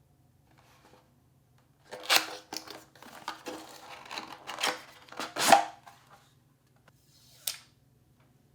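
Computer parts being handled and fitted: a run of sharp clicks, taps and scrapes, the loudest one near the middle, then a single click with a brief rustle a couple of seconds later.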